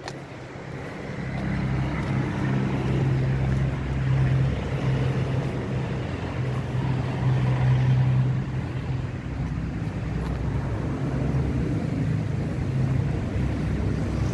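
A truck's diesel engine idling steadily, a low, even hum that grows louder over the first couple of seconds and then holds.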